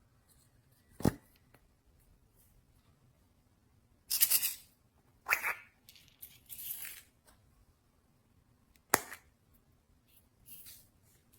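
Slime being handled and mixed. There are two sharp pops, one about a second in and one near the end, and several short squishy rustles in between.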